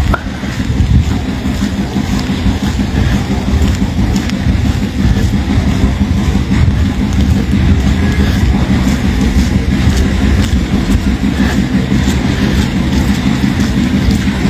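Steady low rumble of wind buffeting a handheld phone's microphone in cold rain.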